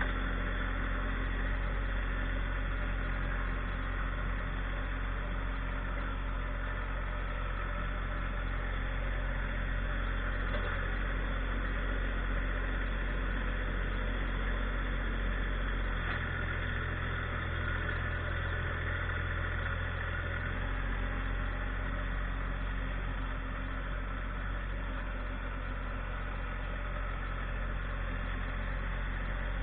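Tractor engine running steadily. Its low tone changes for about four seconds past the middle, then returns to where it was.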